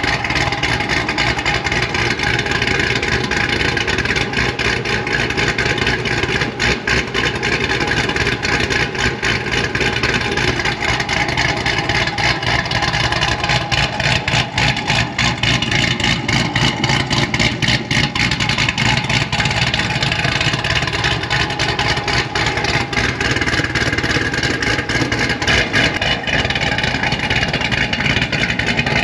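Cadillac CTS-V's supercharged 6.2-litre V8 running steadily at idle, heard from behind the car at its exhaust tips.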